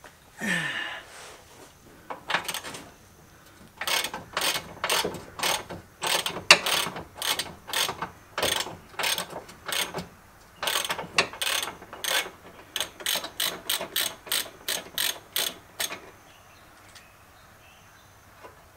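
Hand ratchet wrench clicking in quick back-and-forth strokes, about two a second in several runs with short pauses, as a bolt is worked loose under a car.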